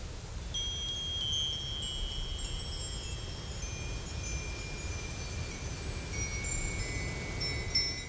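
High chimes ringing: many thin, overlapping tones that start about half a second in and linger, over a steady low rumble.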